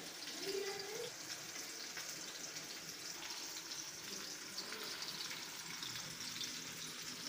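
Steady sizzling hiss of oil frying in a pan.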